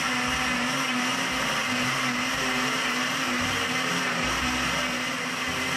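Countertop blender running steadily, blending ice cubes with orange juice, egg, vanilla and honey into an Orange Julius.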